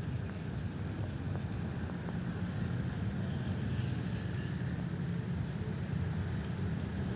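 Steady low rumble of wind buffeting the microphone of a camera carried on a moving bicycle, with the bike's rolling noise underneath.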